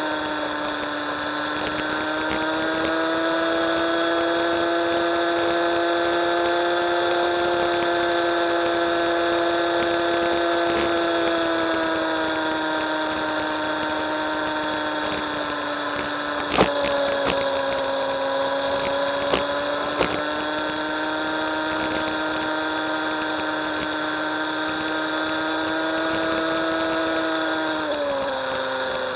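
Motorbike riding along a road: a steady whining engine note that wavers slightly and drops in pitch near the end as it slows, with a few sharp knocks a little over halfway through.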